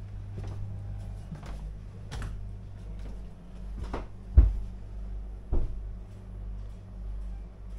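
Several short knocks and thumps over a steady low hum, the loudest about four and a half seconds in.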